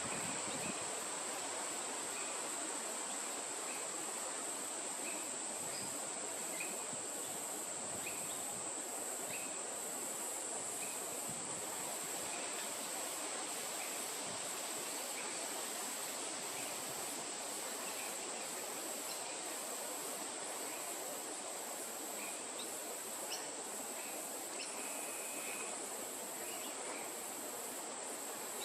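Steady high-pitched insect drone over a soft, even outdoor hiss.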